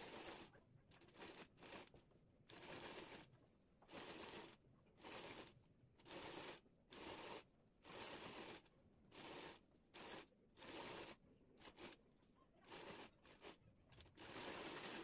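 Sewing machine stitching lace trim onto a blouse neckline in short runs, starting and stopping about once a second as the fabric is turned around the curve; faint.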